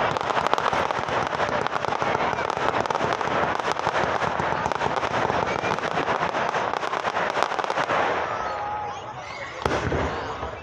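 Fireworks crackling in a dense, rapid patter of sharp pops, firework fountains spraying crackling sparks. The crackle dies away after about eight seconds, and one sharp bang comes near the end.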